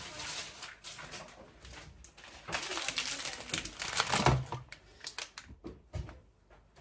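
Kitchen things being handled: rustling and clicking, busiest in the middle, with dull knocks about four and six seconds in.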